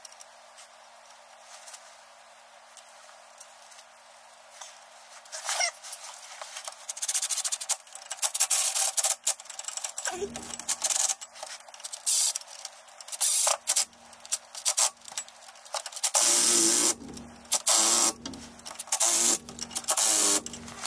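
Cordless power driver running in repeated short bursts, driving in the bolts at the driveshaft's U-joint. It starts about six seconds in, after a few quiet seconds of handling.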